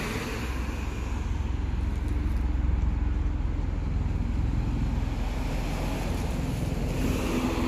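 Wind rumbling on the microphone, with the steady noise of road traffic underneath.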